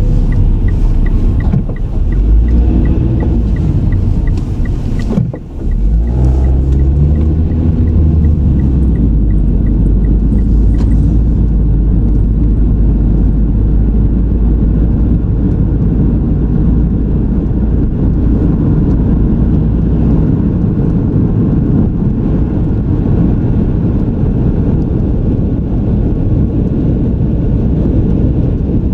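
Car driving, heard from the in-car recorder: a steady engine and road rumble, with the engine pitch rising and falling in the first several seconds as it pulls away. A fast, regular light ticking, about three a second, runs for roughly the first ten seconds, then stops.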